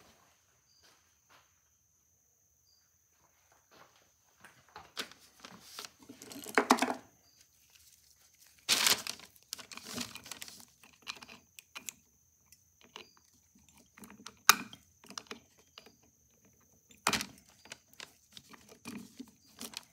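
Pliers working at a small pin in the metal spring barrel of a Victor II phonograph motor: scattered clicks and scrapes of metal on metal and glove rustle as the pin is gripped and pulled. The sharpest click comes about two-thirds of the way through. The pin will not come out because it is bent.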